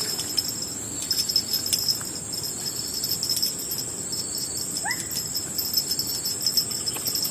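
A steady high buzzing and pulsing trill of tropical insects, like cicadas or crickets, with a few soft clicks. About five seconds in there is one short rising chirp.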